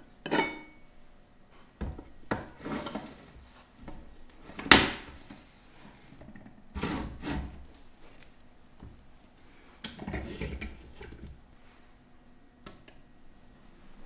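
Small metal parts and tools being handled during the lighter restoration work: a series of separate clinks, knocks and rubbing sounds, the loudest about five seconds in.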